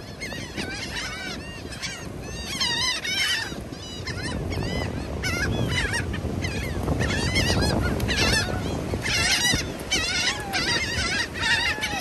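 A flock of seagulls calling over one another, many short high cries overlapping, as the gulls crowd in to be fed. A steady low rushing noise runs underneath and swells midway.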